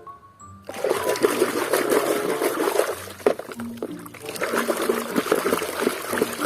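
Water running and splashing over a toy as it is rinsed clean of mud. It starts just under a second in and eases briefly near the middle.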